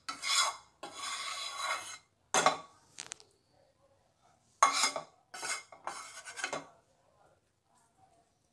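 A steel spoon scraping against a stainless steel tray while pressing and smoothing a stiff sweet mixture flat, in a run of short scrapes that stop about two-thirds of the way through.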